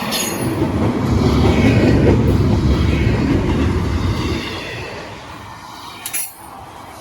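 Freight train rolling past, a heavy low rumble that builds about a second in and eases off after about four seconds, with a couple of sharp metallic clanks near the end.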